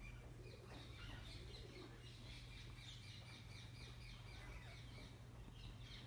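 A flock of green parrots calling faintly, a steady stream of short, high, falling chirps several times a second.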